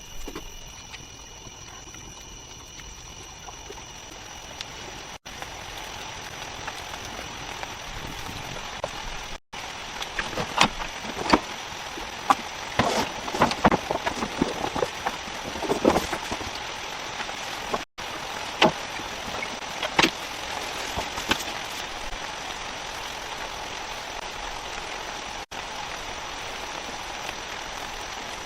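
Rain falling steadily, with a steady thin high tone over it. A run of louder sharp taps and knocks comes in the middle. The sound drops out abruptly for an instant several times.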